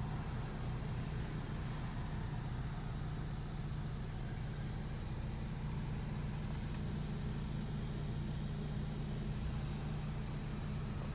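2016 Audi S3's turbocharged 2.0-litre four-cylinder idling, a steady low hum heard from inside the cabin.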